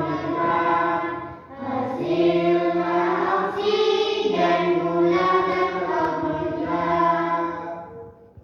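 Voices singing a song about the process of photosynthesis in Indonesian, in held, choir-like phrases, fading out near the end.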